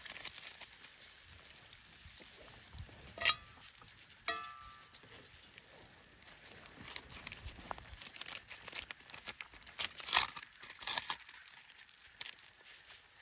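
Rustling and crinkling with scattered clicks, and one short metallic clink that rings briefly about four seconds in.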